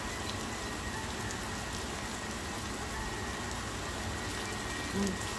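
Salmon steaks sizzling in oil in a nonstick frying pan: a steady hiss with a few faint pops.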